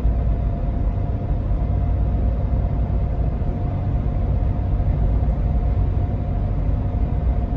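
Cabin noise of a 1999 Jeep Cherokee XJ with its 4.0-litre straight-six, driving at steady road speed: an even low engine and tyre rumble with a thin steady whine above it.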